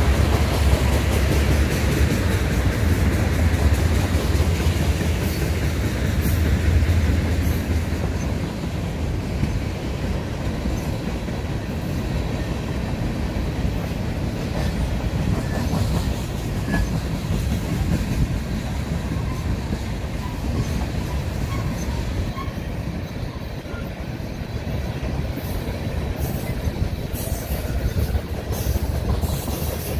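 Freight train of tank cars rolling past: a steady rumble and rattle of steel wheels on the rails, a little louder for the first several seconds. There are a few faint short wheel squeals in the middle and some clicks near the end.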